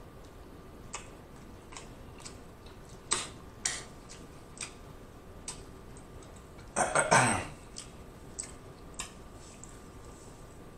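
Close-miked eating mouth sounds: scattered wet lip smacks and clicks. About seven seconds in comes a louder, longer throaty sound that falls in pitch.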